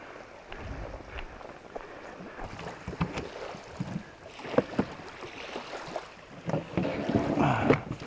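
Scattered light knocks and rustling of gear being handled around a fishing kayak, with a louder stretch of rubbing and rustling near the end.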